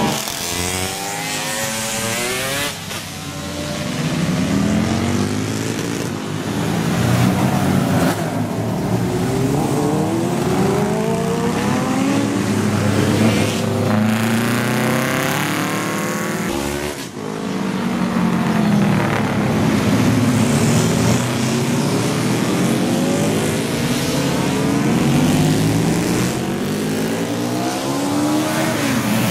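Classic racing motorcycles of the over-350 cc class, built up to 1970, racing past one after another through a bend. The engines rev up and down and their pitch rises and falls as each bike goes by, with several bikes sounding at once at times.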